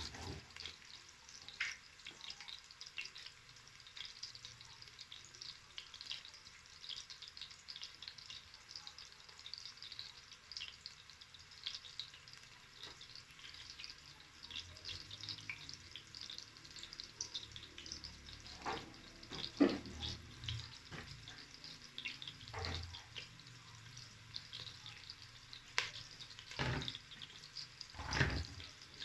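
Onions frying in oil in a pan, a steady fine sizzle and crackle, with a few sharp knocks in the last third.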